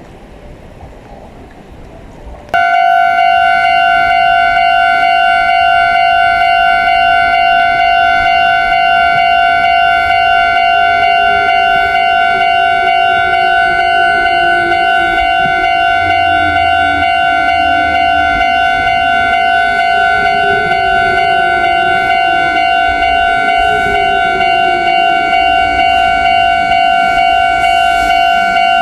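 Electronic warning bell of a Japanese railway level crossing, starting suddenly about two and a half seconds in and ringing on steadily with a fast pulsing, the signal that a train is approaching. Beneath it, a lower whine glides down in pitch from about a third of the way in.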